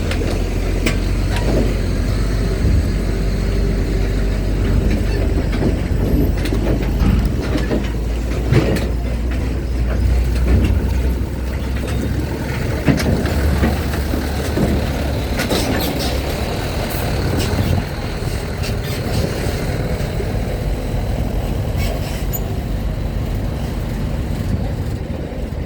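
Truck and car engines running in a low, steady rumble as vehicles drive aboard a ferry, with scattered metallic clanks from wheels crossing the steel ramp; the rumble eases about halfway through.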